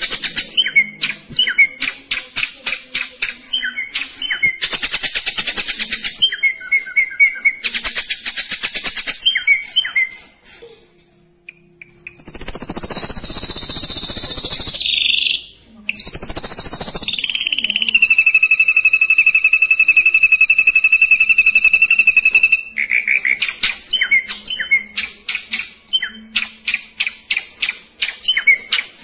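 Ashy drongo singing. It gives rapid rattling runs of sharp repeated notes, and a harsh, hissing phrase near the middle. A single long held whistle lasts about five seconds, and then the quick rattling runs start again.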